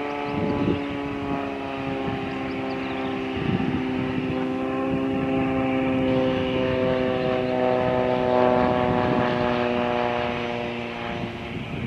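Single-engine propeller aircraft on landing approach, its engine and propeller giving a steady drone of several tones that sink slowly in pitch. It grows louder as it passes and fades near the end.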